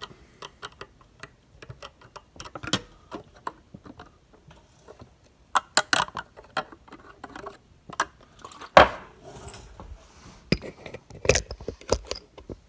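Metal hand tools clicking and clinking as they are handled: scattered light clicks, with a louder knock about nine seconds in and a quick cluster of clicks near the end.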